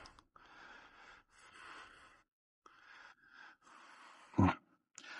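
Faint handling and rustling noise while a screwdriver is worked into the battery stack, with one brief louder sound about four seconds in.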